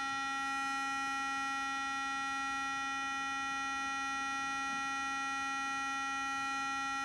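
A bare loudspeaker driver driven by a function generator, sounding one steady tone rich in overtones.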